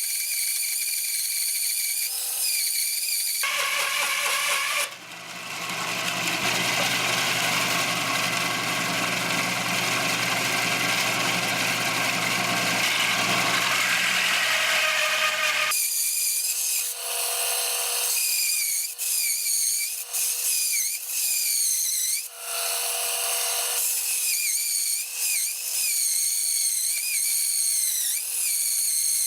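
Homemade band saw, driven by a 1/3 HP washing-machine motor, resawing oak: a high whine whose pitch dips and recovers repeatedly as the blade loads up in the cut. From about 3 to 16 s a fuller, lower machine sound takes over, then the dipping whine returns.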